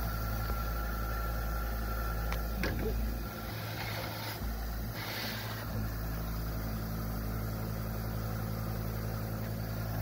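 Hankscraft humidifier running: a steady electric motor hum with a hiss of air and mist blowing out of the vent.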